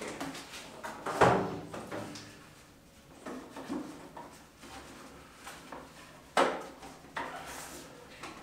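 Handling sounds from a thick red 35 mm battery cable being uncoiled and held up to the wall for measuring: rustling with a few knocks, the loudest about a second in and another about six seconds in.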